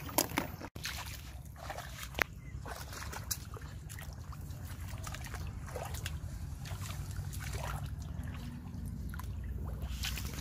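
Shallow muddy water sloshing and trickling as hands grope through it for snails, with a few sharp clicks in the first seconds and a low steady rumble underneath.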